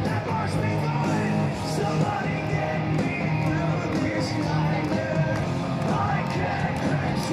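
Hard rock band playing live through a loud PA: distorted electric guitars, bass and drums, with a singer. It is recorded from inside the crowd.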